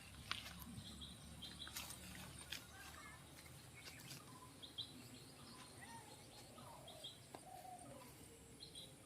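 Faint birds calling, with short high double chirps repeated every second or few and a few lower gliding calls, over a quiet steady background noise.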